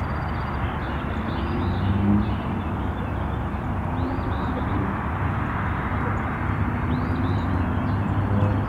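Steady outdoor background rumble with a few faint, short songbird chirps.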